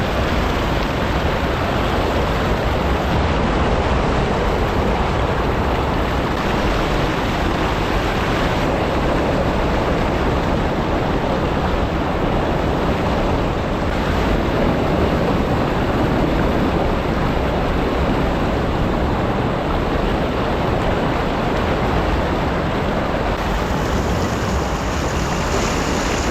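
Steady rush of ocean surf and wash over coastal rocks, mixed with wind buffeting the microphone.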